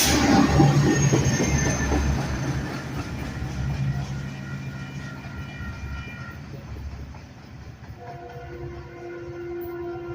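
Metrolink commuter train with an F125 diesel locomotive passing and moving away, its rail noise loud at first and fading steadily. Near the end, a distant train horn sounds a held chord for about two seconds.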